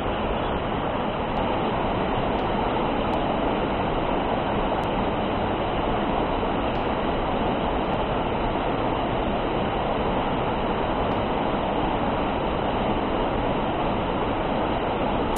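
A mountain stream flowing: a steady, even noise of running water that does not change.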